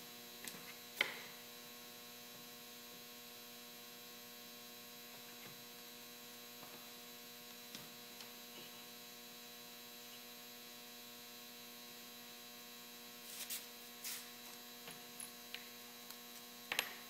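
Steady, faint electrical mains hum, with a few light clicks and knocks from wooden strips and a bar clamp being handled: a sharp click about a second in and a cluster of knocks near the end.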